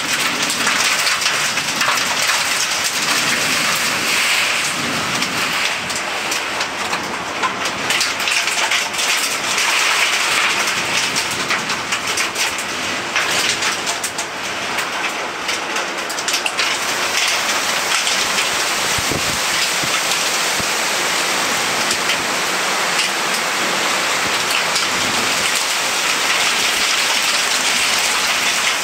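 Heavy wind-driven rain in a violent storm: a dense, steady hiss and patter of drops, swelling and easing a little.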